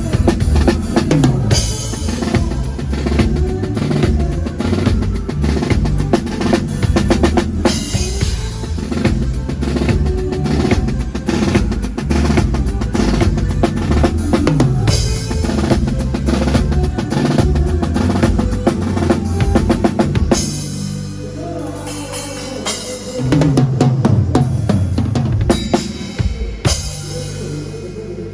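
Drum kit played with a band's music: kick, snare and crashing cymbals over a bass line. It softens for a few seconds about three-quarters of the way in, picks up again, then fades near the end.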